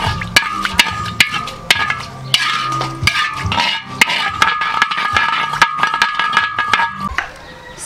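Metal spatula scraping and clicking against a large metal wok as curry seeds are stirred in a little oil, with many quick sharp taps.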